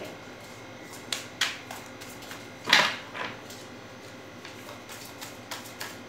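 A deck of tarot cards being shuffled by hand: scattered soft clicks and flicks of the cards, with one louder short rustle a little under three seconds in.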